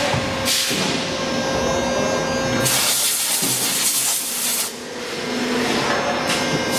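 Injection molding machine running with a steady hum and long bursts of hissing air, three of them, the second the loudest.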